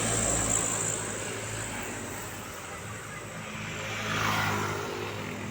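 Road traffic: a steady low engine hum, loudest at the start, with a vehicle passing about four seconds in, its rushing noise swelling and fading.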